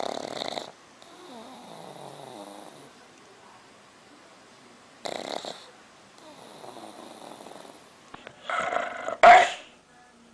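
A dog snoring: two loud, rough snores about five seconds apart, each followed by a softer exhale. Near the end comes a louder burst of sound.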